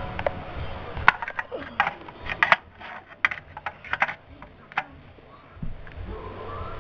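Light, irregular plastic clicks and clacks of O scale model train cars being handled by hand on the track, with a low rumble at the start and again near the end.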